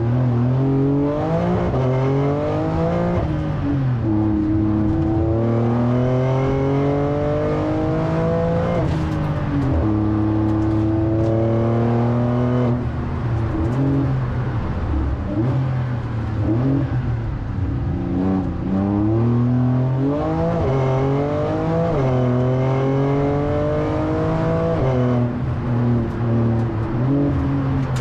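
Porsche 911 Turbo S twin-turbo flat-six heard from inside the cabin, accelerating hard through the gears, its pitch climbing and then dropping at each upshift. In the middle it eases off into a lower, uneven stretch through the bends, then pulls up through the gears again.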